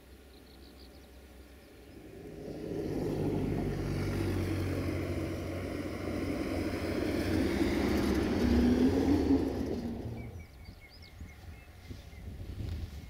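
A motor vehicle driving past, its engine and tyre noise building over a few seconds, loudest about nine seconds in, then fading quickly. Small birds chirp faintly after it has gone.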